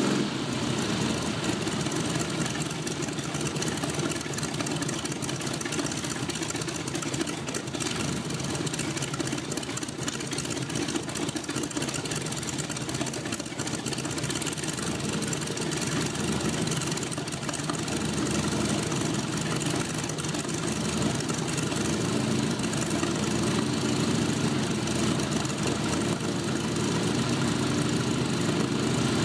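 Propeller aircraft engine running steadily at idle, its propeller spinning.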